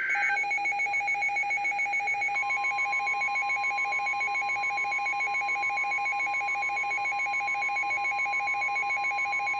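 Weather-radio alert alarm before a special marine warning: a fast-pulsing alarm beep, joined about two seconds in by the steady NOAA Weather Radio warning alarm tone.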